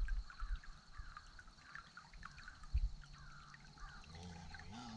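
Small water sounds, lapping and trickling against the boat, with a few dull knocks. A short low hum comes in near the end.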